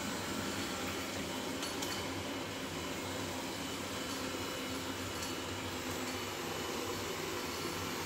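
Robot vacuum running: a steady whir of its suction fan and brushes, with a few faint clicks.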